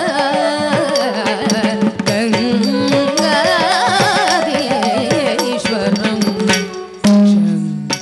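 Carnatic music accompanying a classical dance: a heavily ornamented, sliding melody over a steady drone, with drum strokes. The music swells sharply near the end.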